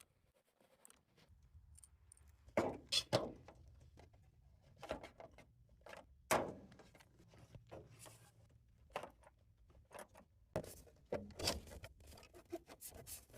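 Irregular light knocks, thumps and rubbing sounds of work being handled, loudest in clusters about three seconds in, about six seconds in and near eleven seconds, over a faint low hum.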